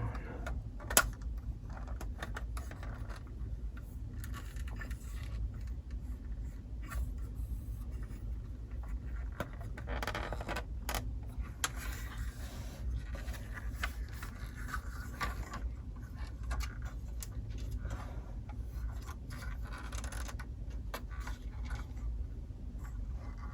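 A plastic LEGO model being handled: scattered light clicks and scrapes of plastic pieces as its doors are worked, over a steady low hum.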